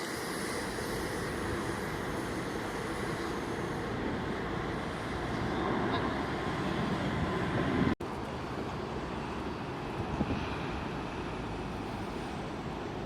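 Steady rumble of jet aircraft engines at an airport, swelling over a few seconds and breaking off abruptly about 8 seconds in, then continuing at a steady level.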